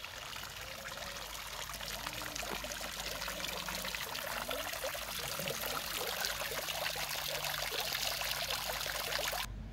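Garden fountain: water spilling over the rim of an urn and splashing and trickling into the pool of its round basin. A steady splashing that grows louder and cuts off abruptly near the end.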